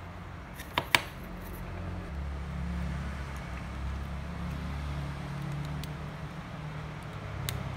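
Two sharp clicks about a second in as the opened phone is handled on the repair bench, with a smaller click near the end, over a steady low background hum.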